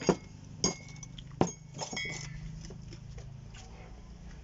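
A metal spoon clinking and knocking against ceramic plates and bowls: four or five sharp clinks in the first two seconds, a couple of them ringing briefly, then only faint small taps.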